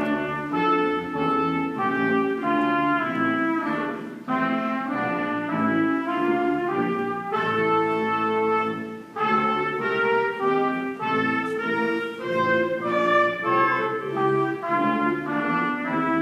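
Middle-school band students playing a brass piece live: a higher trumpet-like line over a lower part, in sustained notes, with short breaks between phrases about four and nine seconds in.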